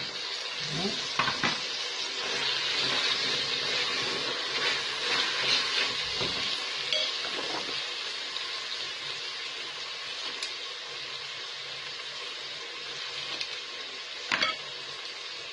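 Veal, sliced onions and freshly added diced tomatoes frying in oil and margarine in a metal pot, sizzling steadily. The sizzle is loudest in the first several seconds and settles lower after that. A couple of light clicks sound against the pot.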